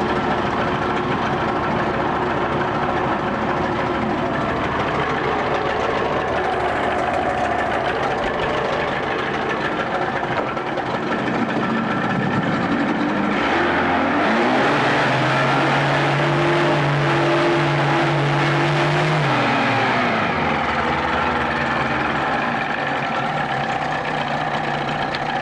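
1984 Evinrude 25 hp two-stroke outboard running in a test tank. About halfway through it revs up, holds a higher, steadier speed for several seconds, then drops back to a lower running speed.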